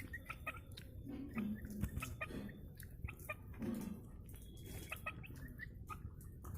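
Aseel chickens clucking low a few times, about a second and a half and four seconds in, over many short, high chirps.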